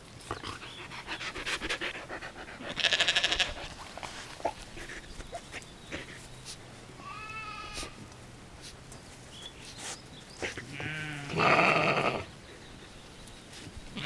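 Samoyed puppies, about three and a half weeks old, whining in high, squealing cries: a short cry about three seconds in, a faint one in the middle and a longer, louder one near the end, with soft rustling in the grass between.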